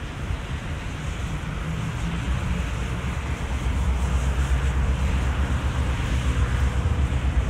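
A train rumbling low and steady under a wash of wind-like noise, getting a little louder about four seconds in.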